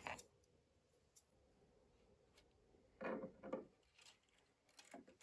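Soft handling noises of 3D-printed plastic model parts: a sharp click at the very start, then a short rubbing scrape about three seconds in as the small model engine is fitted into the plastic engine bay, with faint ticks between; otherwise near silence.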